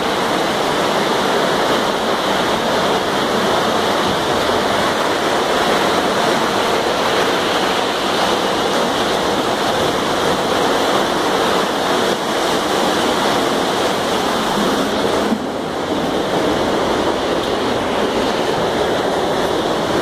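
Floodwater rushing through a house as a loud, steady torrent, briefly a little quieter about fifteen seconds in.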